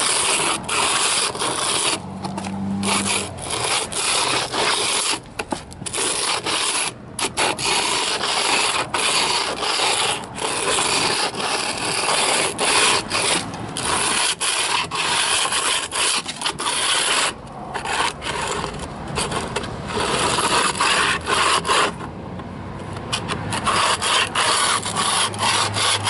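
The plastic housing of an old Genie infrared unit, with a pencil held against it, being dragged by hand along a rough concrete floor while the pencil scribes a line on a wooden garage door bottom. The result is a steady rasping scrape broken by a few brief pauses.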